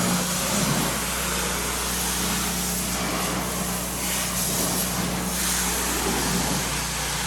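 Pressure washer running: a steady motor drone under the hiss of the water jet, the hiss swelling for a couple of seconds midway.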